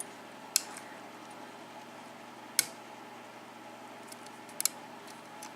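A few sharp metallic clicks as a lock pick works the pins inside a six-pin Schlage KIK pin-tumbler lock under light tension, two of them close together near the end.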